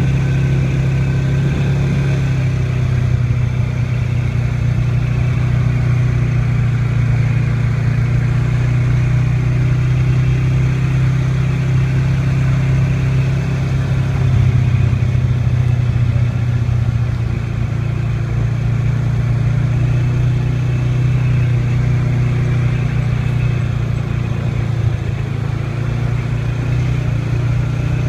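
ATV engine running steadily as it rides along a dirt trail, swelling briefly about halfway through.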